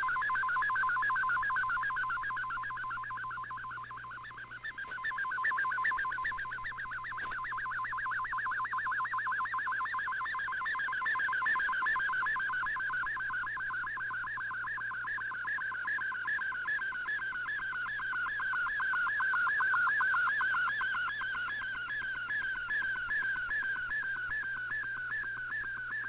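Shortwave Radiogram's MFSK digital picture transmission received off shortwave: a rapid, continuous warble of tones sweeping again and again within a narrow band, as each line of a colour image is sent. The signal dips briefly about four seconds in, over a faint steady hum.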